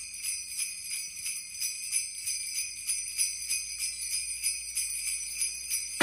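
Sleigh bells shaken in a steady rhythm, about four shakes a second, ringing bright and high.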